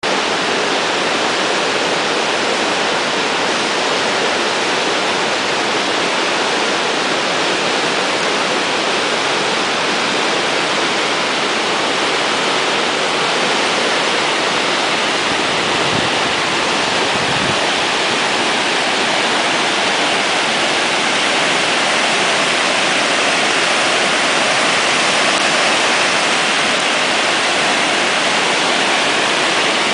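Water pouring down a dam's stepped concrete spillway: a loud, steady rush of aerated white water.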